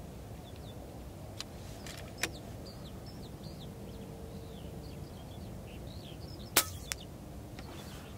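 A single shot from an AirMaks Katran X HP .22 PCP air rifle: one short, sharp report about six and a half seconds in, with a fainter click about a third of a second later. Small birds chirp over a steady outdoor hiss, and there are a couple of lighter clicks earlier on.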